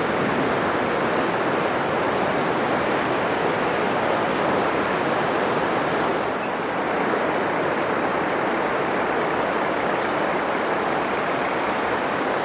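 Atlantic surf breaking on a sandy beach: a steady, continuous rushing wash of waves, dipping slightly about halfway through.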